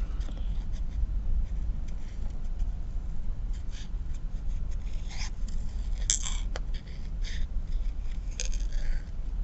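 Small spring-loaded craft scissors snipping around a stamped flower in a piece of card: short, irregular snips and scrapes at an uneven pace.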